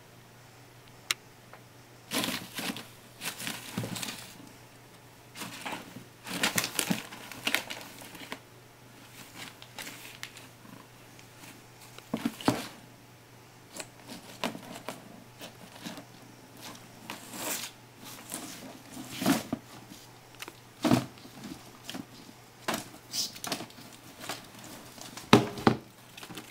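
Paper and thin card rustling and crinkling as a cat plays in a rolled paper sheet and among loose brochures. It comes in irregular bursts with short pauses between, and the loudest rustle is near the end.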